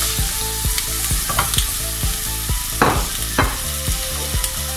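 Sliced potatoes and onion sizzling and crackling in hot olive oil in a frying pan, while a wooden spoon stirs them, scraping loudly against the pan twice about three seconds in.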